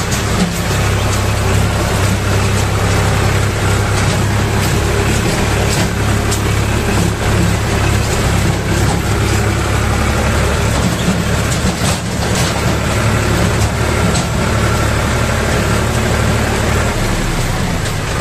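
Small tractor's engine running steadily as it crawls over a rocky creek bed, with scattered knocks and rattles from the stones.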